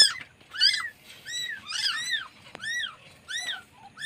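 Newborn kitten mewing over and over: thin, high-pitched cries, each rising and falling, about one every half second.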